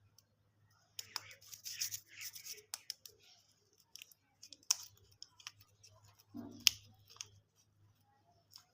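Plastic candy packaging being handled and opened: a couple of seconds of crinkling, then scattered sharp clicks and snips.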